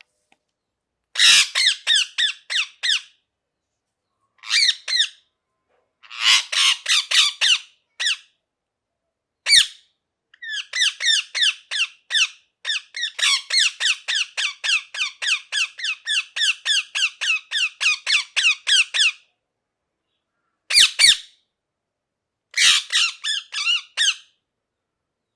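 A parrot calling in bursts of rapid, shrill squawks, several short runs with silent gaps between them. In the middle comes one long unbroken run of about three to four squawks a second, lasting some eight seconds.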